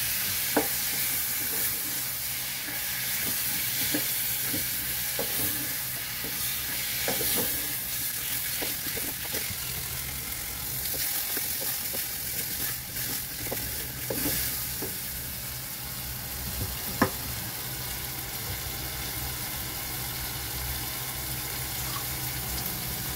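Chopped tomatoes and spices frying in a nonstick pot with a steady sizzle, cooking down into a tomato gravy. A wooden spatula stirs and scrapes against the pot in scattered clicks, with one sharper knock about 17 seconds in, over a steady low hum.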